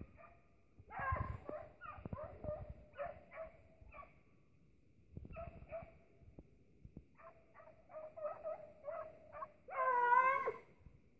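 Hunting dogs yelping and baying while driving a rabbit: a run of short, broken yelps, then a longer, louder drawn-out bay about ten seconds in.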